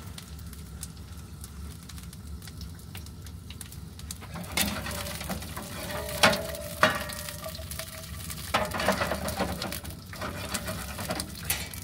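Asparagus spears laid into a hot oiled pan on a propane camp stove, sizzling, with metal tongs clinking against the pan. The sizzle and clatter start about four seconds in over a low steady rush from the burners. The two loudest clinks come close together near the middle.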